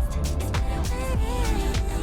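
Background music with a steady beat and a wavering, singing-like melody line.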